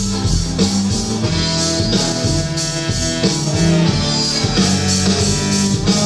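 Rock music with guitar and drums playing through a Polk Audio powered tower speaker driven from a CD player and a small amplifier: a playback test showing that the speaker works after its input jacks were replaced. The music is steady, with a strong bass line and a regular beat.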